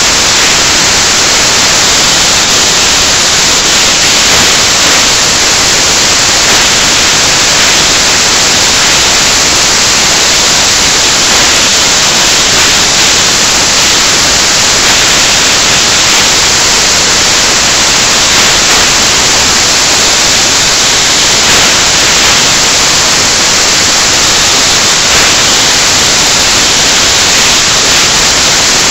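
Loud, steady static hiss filling the recording, strongest in the upper range, with no other sound standing out above it.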